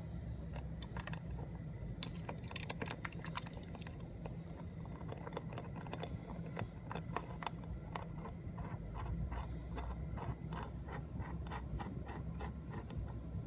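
Runs of light, sharp clicks, a few a second, from hand work at the RV door, over a steady low hum.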